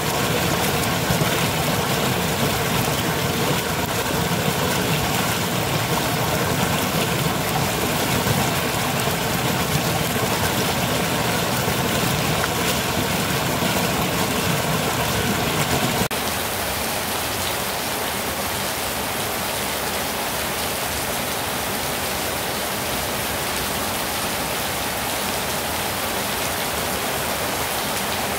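A small waterfall pouring over a ledge into a foamy pool, a steady low rush of water. About sixteen seconds in it changes abruptly to steady rain falling on wet paving stones, a quieter, even hiss.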